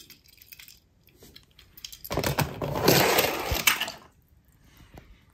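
A small die-cast Lightning McQueen toy car is dropped into a plastic tub of water, splashing and clattering against the other metal toy cars already in it, about two seconds in, after a few faint clicks of the toy being handled.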